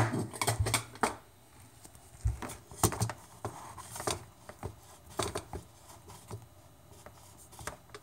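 Irregular clicks, taps and knocks from the recording device being handled close to its own microphone, with a loud knock at the very start.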